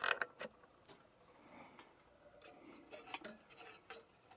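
A wooden woodpecker whirligig being handled: a sharp clatter right at the start, then faint rubbing and scattered light clicks and rattles. Near the end its propeller is turned by hand on its shaft, on bearings just locked in place.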